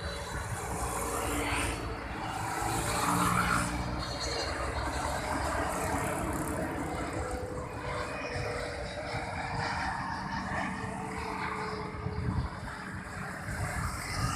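Jet roar from a Boeing 777-300ER's GE90 turbofans as the airliner flies low on final approach to land, gear down. The roar is steady and swells to its loudest a few seconds in.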